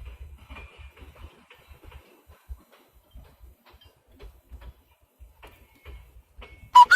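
Faint, irregular clicks and low knocks. Near the end a phone's text-message alert starts loudly with a whistle-like rising chirp.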